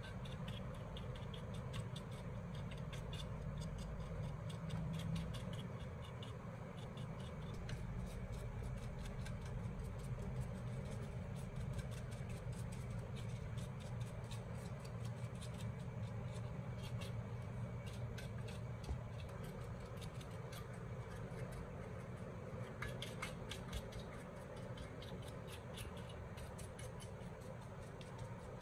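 Paintbrush bristles scrubbing over the metal, copper windings and glass of a CRT's neck and deflection yoke, flicking off flakes: fine scratchy ticks over a steady low hum.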